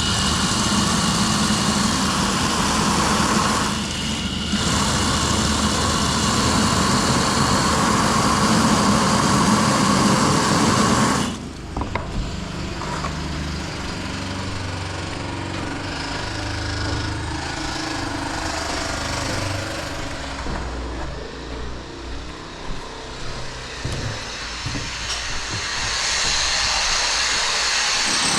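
Construction machinery running: a loud, steady machine sound that dips briefly about four seconds in and cuts off suddenly about eleven seconds in. Quieter, uneven machine noise follows and grows louder again near the end.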